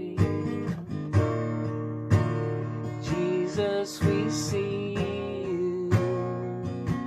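Acoustic guitar strummed in chords, about one stroke a second, with a man's voice singing held notes over it.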